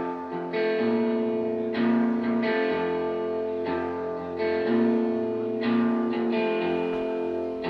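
Two electric guitars playing live through amplifiers: clean, ringing chords, each held about a second before the next.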